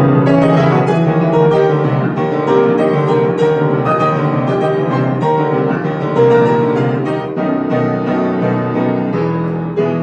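Grand piano played loudly, with dense many-note chords and quick passages following one another without a break.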